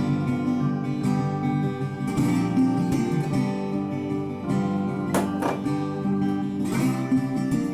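Background music: an acoustic guitar instrumental, strummed and plucked.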